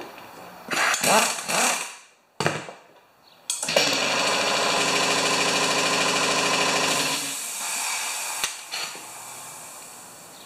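Cordless impact wrench driving and hammering a lawn mower's 5/8-inch blade bolt tight: a few short bursts, then about three and a half seconds of steady hammering that eases off near the end.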